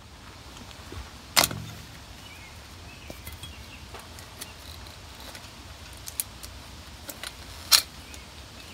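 Sharp metallic clinks from a water well head being worked loose on top of the well casing: two loud ones, about a second and a half in and near the end, with a few fainter taps between.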